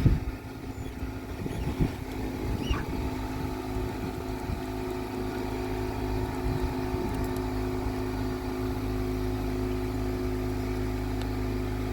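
A motor running steadily with a low, even hum, and a few light knocks in the first few seconds.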